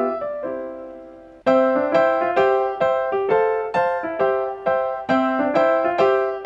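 Piano music: a struck chord dies away, then about a second and a half in a run of bright notes follows at roughly three a second, cut off abruptly at the end.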